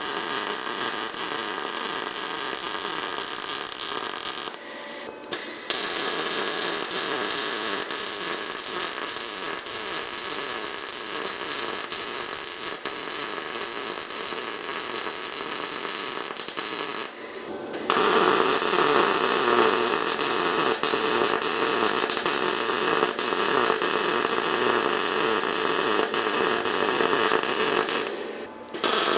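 Arc welding on steel: a steady crackling arc, stopping briefly three times between beads.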